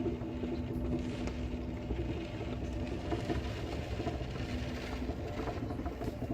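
Steady low rumble of typhoon wind and heavy rain heard from inside a room. A steady hum runs under it, stops about three and a half seconds in and briefly returns.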